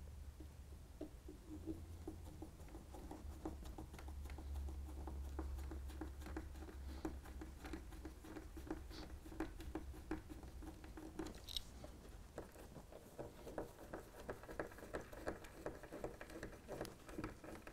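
Small hand screwdriver driving small screws through the plastic sleepers of a model railway point into the baseboard: faint, repeated scratching and squeaking with many small clicks.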